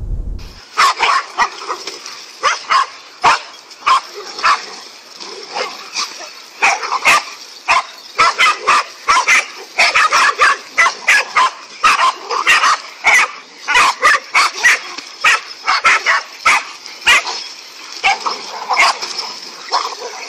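A pack of several dogs barking and yipping in rapid, overlapping short barks, starting about half a second in, as they bay at and attack a large snake.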